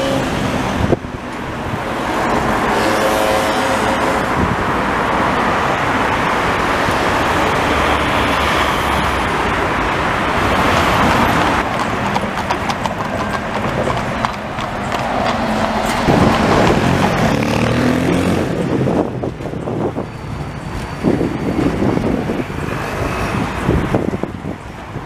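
Street traffic as cars pass, with a two-horse carriage going by and its hooves clip-clopping on the road.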